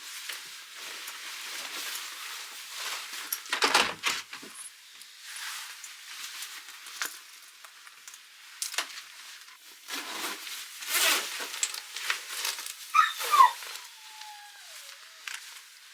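A young dog whines near the end, with a couple of short high yelps and then a drawn-out falling whine. Irregular rustling and knocking noises run under it, louder twice.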